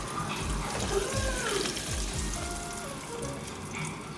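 Battered shrimp deep-frying in a pot of hot oil, a steady bubbling sizzle. Background music with a thudding bass beat plays over it.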